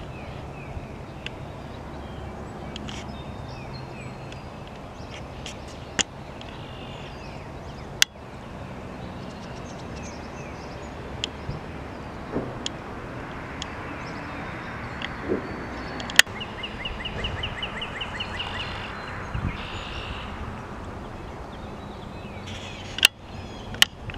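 Outdoor wetland ambience: a steady low background rumble with scattered bird calls, including a rapid trill about two-thirds of the way through, and a few sharp clicks.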